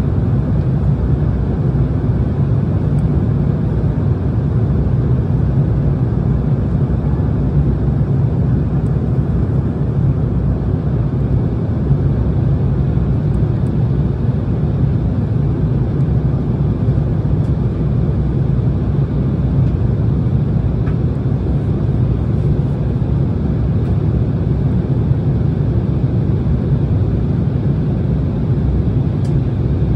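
Steady cabin noise inside an Embraer E170 airliner in flight: its twin turbofan engines and the airflow around the fuselage, an even low drone that does not change.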